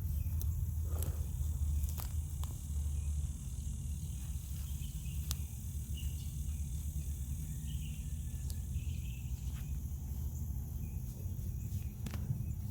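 Field ambience: a steady high chirring of insects over a low, even rumble, with a few scattered light clicks and rustles.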